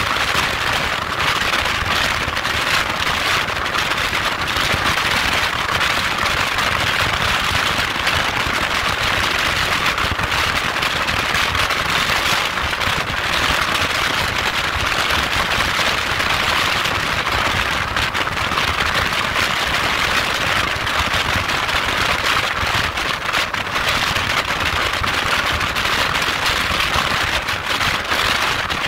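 Wind rushing over the microphone of a motorcycle at highway speed: a steady loud hiss with constant crackling and low rumbling buffeting that masks the engine.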